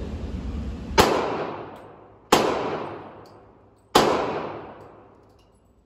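Three gunshots on an indoor shooting range, about a second and a half apart, each a sharp crack followed by a long echo fading out in the enclosed range.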